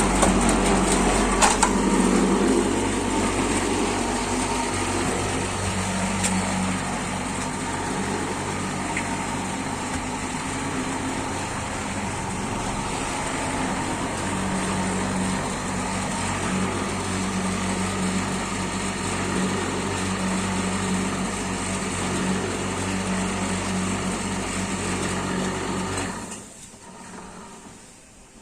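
A 350-litre mini concrete mixer running steadily, its motor and turning drum making a constant mechanical hum. The sound drops away abruptly near the end.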